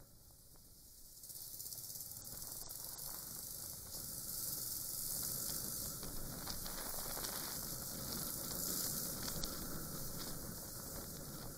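Muffled riding noise picked up by a DrivePro 20 dashcam on a Suzuki Grasstracker Big Boy, a 250 cc single-cylinder motorcycle: a steady hiss of wind and engine. It grows louder about a second in and again a few seconds later.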